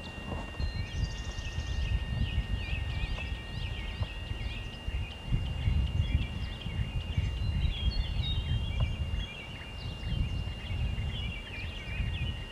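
Several small birds chirping and twittering in quick, overlapping calls over an uneven low rumble of wind on the microphone.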